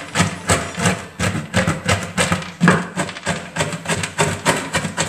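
Kitchen knife chopping toasted almonds on a wooden board, quick regular chops about four a second, cracking the nuts into coarse pieces.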